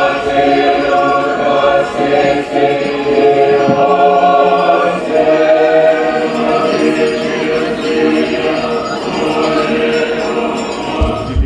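Russian Orthodox church choir singing a slow hymn in several parts, holding long chords.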